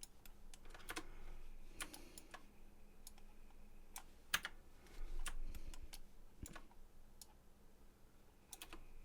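Computer keyboard keys and mouse buttons clicking at an irregular pace, with one sharper click about halfway in.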